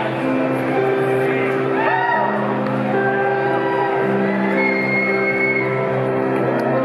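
Live blues-rock band playing on electric guitars and drums, with held guitar notes and slide guitar lines gliding up and down in pitch.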